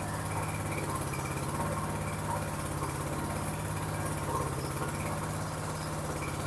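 Small 200 cc petrol engine running steadily near idle, driving a loaded ribbon feed mixer through its gearbox.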